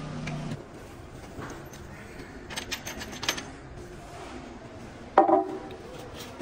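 Hand tools and steel engine parts being handled on a diesel engine under overhaul: a low hum stops early, a few light metal clicks follow in the middle, and a louder clank with some ringing comes about five seconds in.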